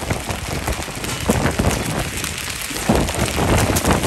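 Heavy rain and hail pelting the ground, with wind gusting in loud swells and rumbles across the microphone.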